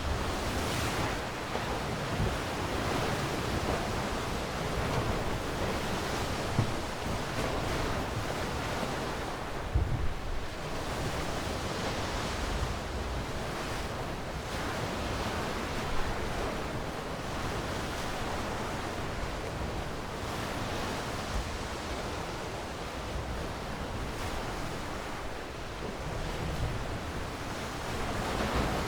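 Sea waves breaking and washing on a shore: a continuous surf rush that slowly swells and eases. A couple of brief low thumps stand out, about ten and sixteen seconds in.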